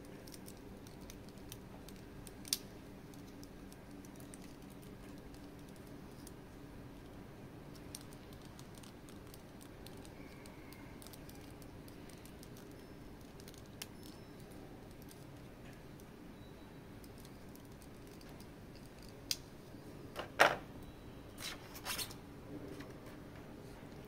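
Sparse small clicks and taps of a boxed collectible figure and its plastic packaging being handled, with a quick run of sharper clicks near the end, one of them much louder.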